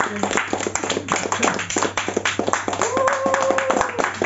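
Small audience applauding, many hands clapping steadily. About three seconds in, one voice calls out a single held note for about a second over the clapping.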